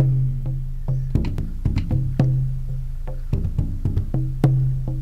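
Background music: plucked string notes over a steady low bass note, with a clicking percussive beat.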